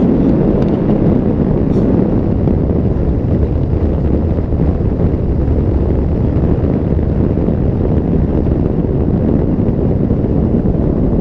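Wind buffeting the microphone of a moving car, heard as a steady low rumble, with vehicle road noise underneath.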